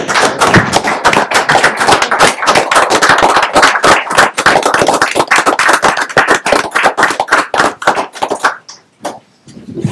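A small roomful of people applauding with dense, quick clapping that dies away about eight and a half seconds in.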